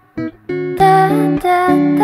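Background music led by plucked guitar chords, with a brief break at the very start before the chords come back in.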